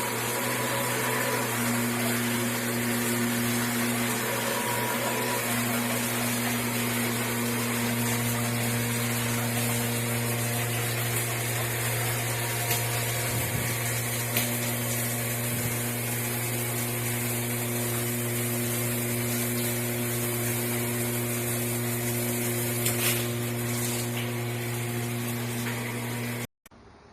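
Water heater's built-in DC inverter booster pump running with a steady hum while the rain shower sprays a steady hiss of water; both cut off abruptly near the end.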